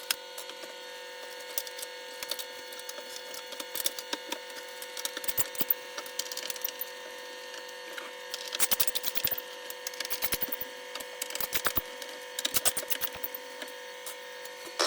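Bursts of rapid small clicks and crackles from a screwdriver and metal and plastic parts as the ground connection is unscrewed inside an induction hob. A steady faint hum runs underneath.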